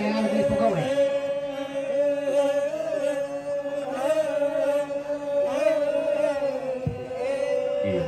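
Torajan badong funeral chant: a group of voices chanting together in a slow drone, holding one steady note while other voices slide and waver above it.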